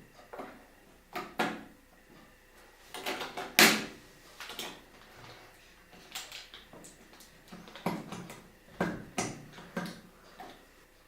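Irregular clicks, knocks and short rustles of computer parts and packaging being handled during a PC build, the loudest knock about three and a half seconds in.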